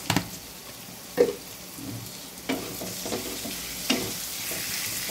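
Wooden spatula stirring fried potatoes and pointed gourd in a nonstick kadai, knocking against the pan about four times, the loudest a little over a second in. Oil sizzles under the stirring, growing louder near the end.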